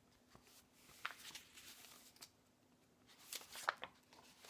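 Paper pages of a picture book being turned and handled: two short bouts of faint rustling, about a second in and again around three seconds in, with sharp flicks of paper.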